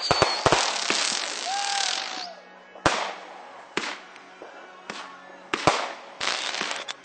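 Fireworks going off: a dense crackling for about the first two seconds, then a run of single sharp bangs about a second apart, each with a short echo.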